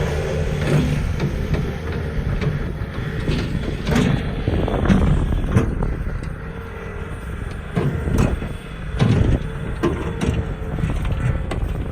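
Bobcat S250 skid steer's diesel engine running steadily, with several sharp knocks over it around the middle and again later.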